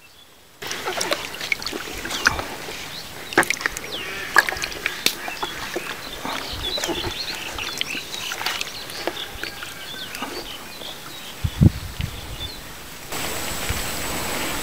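Water splashing and sloshing in a plastic bucket, with many irregular sharp splashes, as live snakehead fish are handled in it; small bird chirps sound behind. Near the end the sound gives way to steady outdoor ambience with a thin high whine.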